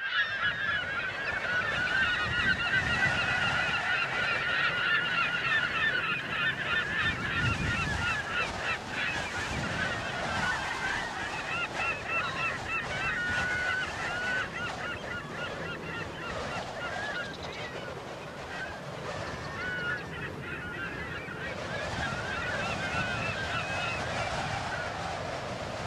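A flock of flamingos calling: a dense chorus of short, honking, goose-like calls, busiest in the first half and thinning out later.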